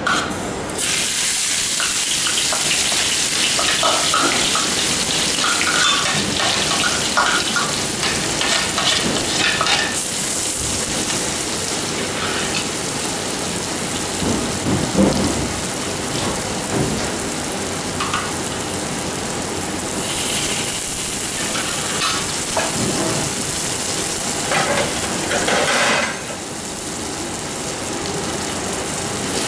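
Blended chilli, shallot and garlic spice paste sizzling and crackling in hot oil in a wok. The sizzle starts about a second in, as the paste hits the oil.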